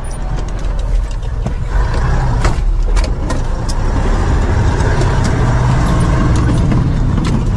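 Ural army truck's diesel engine running under load as the truck drives off, heard from inside the cab, getting louder over the first couple of seconds. Sharp knocks and rattles sound over it.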